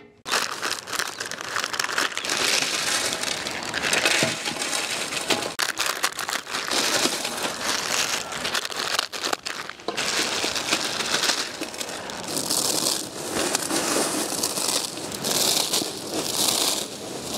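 Dry instant noodle blocks (Maggi and Yippee) being crushed into crumbs by hand: dry crackling crunches in irregular bursts.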